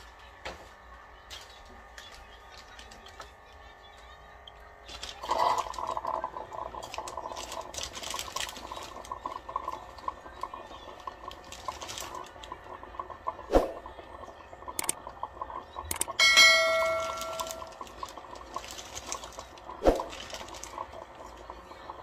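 Keurig single-serve coffee maker brewing into a paper cup: a faint pump hum, then from about five seconds in a louder gurgling and sputtering as the water is pushed through the pod. A few sharp clicks and a brief pitched tone about two-thirds through are heard over it.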